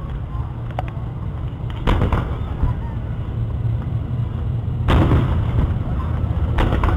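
Aerial firework shells bursting, three booms: about two seconds in, about five seconds in, and again shortly before the end. A steady low rumble runs underneath.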